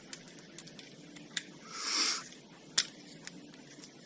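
Quiet hand work on an ATV's front brake caliper: two sharp metal clicks about a second and a half apart, a few fainter ticks, and a brief soft rustle in between.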